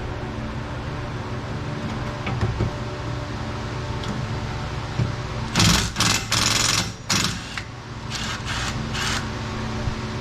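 Impact wrench driving a 14 mm brake bolt in a run of short bursts about halfway through, about seven quick rattling bursts in all.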